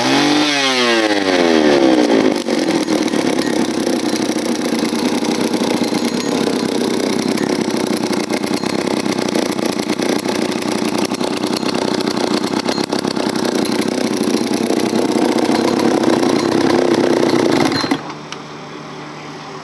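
Freshly rebuilt Jobu M5 two-stroke chainsaw running on its first start after the rebuild: revved up and down at first, then running steadily, and stopping suddenly about eighteen seconds in.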